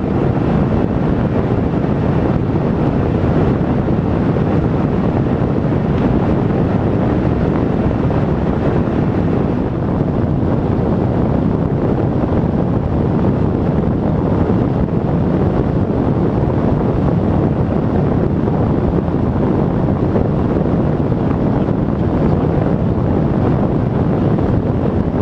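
Steady rushing cockpit noise of a Cessna Citation Encore business jet in the climb: airflow and turbofan engine noise.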